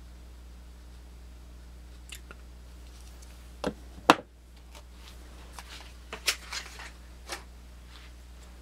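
Sharp clicks and taps of pocket knives being handled: several small hard knocks, the loudest about four seconds in and a quick cluster after it, over a steady low hum.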